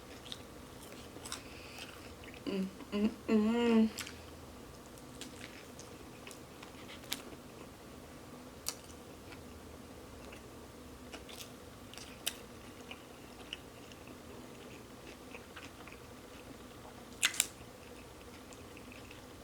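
Close-miked chewing and mouth sounds of a person eating, mostly quiet with scattered small wet clicks. A short hummed "mmm" comes about three seconds in, and a sharper double click near the end.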